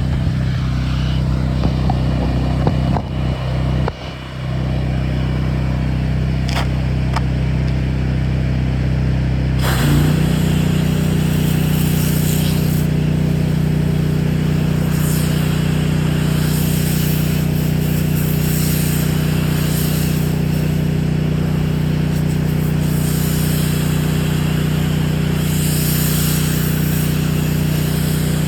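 Pressure washer's engine running steadily. About ten seconds in its note changes and a steady hiss of high-pressure spray from the X-Jet nozzle joins it, carrying on to the end.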